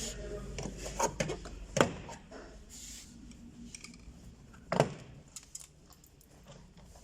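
Flat-blade screwdriver prying at the underside of a Toyota Corolla's plastic door trim panel: light scraping and small clicks, with two sharp knocks about two and five seconds in.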